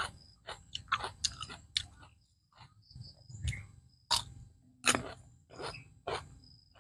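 Close-miked chewing and lip-smacking while eating raw shrimp with cucumber, a run of short wet clicks and crunches.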